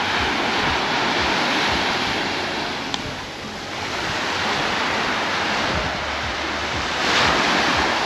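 Small waves breaking and washing up on a sandy shore, the surf swelling near the start and again near the end, with some wind on the microphone. A single sharp tap sounds about three seconds in.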